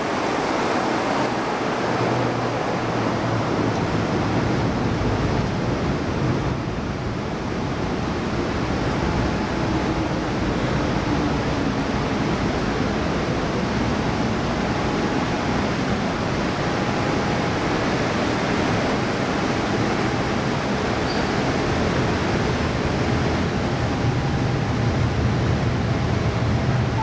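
MTR M-Train running into an underground station behind platform screen doors: a steady rumble of wheels and traction motors as it slows to a stop.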